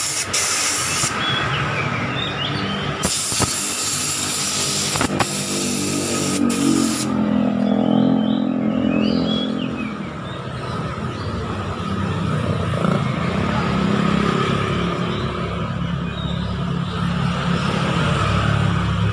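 Compressed air hissing from a blow-gun nozzle in spells as the automatic transmission valve body is blown clean, then a low, steady vehicle engine drone takes over from about seven seconds in.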